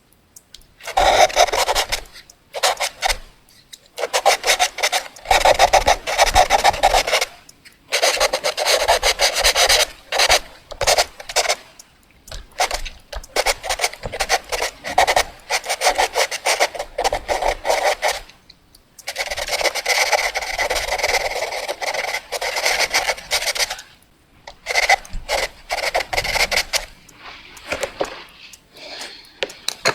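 Fast drawing strokes: a drawing tool scratching rapidly back and forth over a surface, in runs of a few seconds broken by short pauses.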